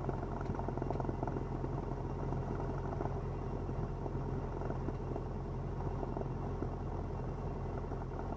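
1977 Cessna 172N's four-cylinder Lycoming engine idling steadily as the plane taxis, the propeller turning slowly, heard from inside the cabin.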